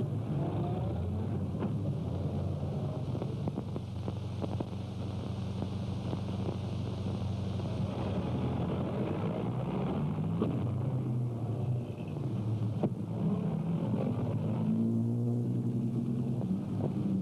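Car engine running steadily, its pitch shifting a little partway through and again near the end.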